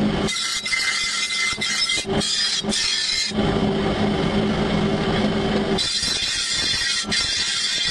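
Large abrasive grinding wheel grinding the edge of a steel mower scythe blade: a harsh rasping hiss of metal against the wheel. About three seconds in the grinding stops for some two and a half seconds while the blade is lifted off, leaving only a steady low hum, then starts again near the end.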